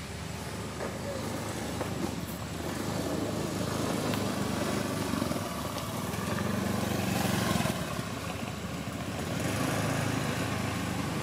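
A motor engine running, with a steady low hum that swells louder through the middle and again near the end.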